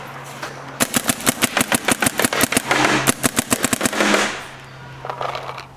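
Planet Eclipse LV1 electronic paintball marker firing a rapid string of shots, about thirteen a second for roughly three and a half seconds, trigger walked as fast as possible for a rate-of-fire test. A steady low hum runs underneath.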